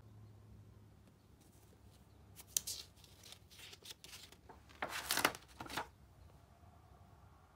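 Pages of a spiral-bound sketchbook being turned: paper rustling in two bursts, the louder one about five seconds in.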